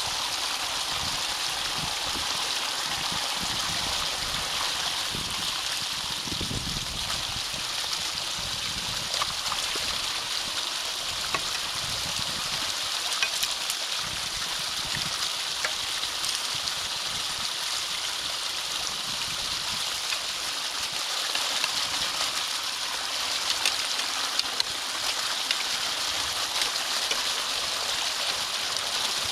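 Water running steadily in a drainage ditch, a continuous rushing flow with some gurgling. Scattered clicks and a few low thumps in the first several seconds.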